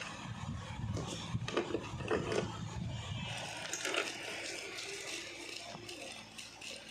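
Hands handling packing materials for photo cards: scraping and rustling with scattered light taps and clicks.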